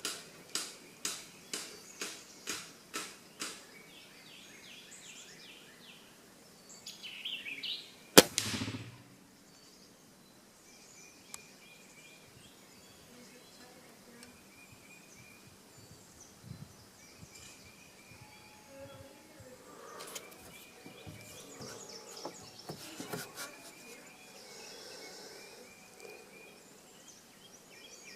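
A single sharp crack with a brief low thump about eight seconds in, typical of a shot from a Gamo Bull Whisper Extreme break-barrel air rifle, over small birds chirping. A short run of regular clicks, about two a second, fades out in the first few seconds.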